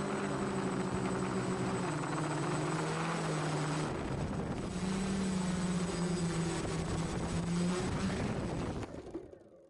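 F450 quadcopter's four brushless motors and propellers droning, the pitch shifting with throttle and dipping briefly about four seconds in. The motors then spin down and fade out near the end.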